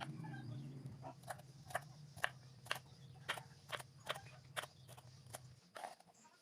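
Knife cutting on a cutting board in a regular rhythm, about two cuts a second, over a faint low hum that stops near the end.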